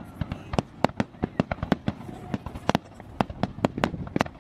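Fireworks display: aerial shells bursting in a rapid, irregular run of sharp bangs, about five a second, over a low rumble.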